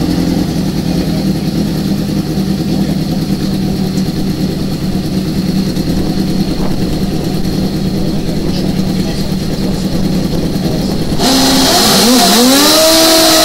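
Suzuki drag-racing motorcycle's engine running at a steady idle, then revved harder about eleven seconds in, its pitch swinging up and down and then holding high as the burnout begins.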